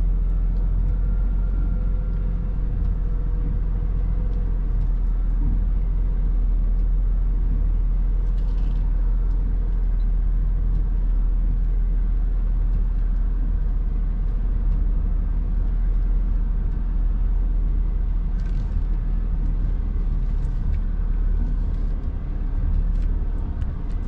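Truck engine running steadily with a deep low rumble as the truck reverses slowly, with a couple of brief hisses about a third of the way in and again later.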